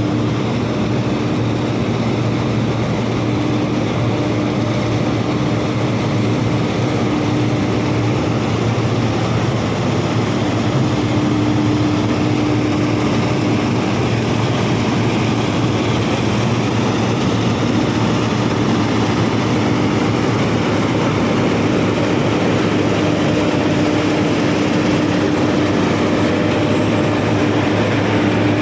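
Combine harvester running steadily while cutting wheat: a continuous engine and machinery drone with a steady hum.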